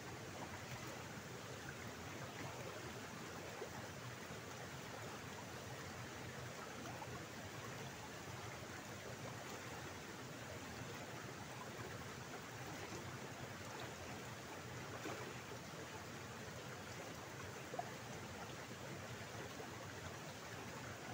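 Shallow water running steadily down a narrow stone-walled channel, a constant even rush. One brief click about three-quarters of the way through.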